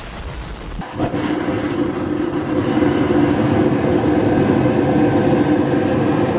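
Gas burners of a burnout kiln running hard: a steady roar with a hum in it, coming in after a cut about a second in and holding level.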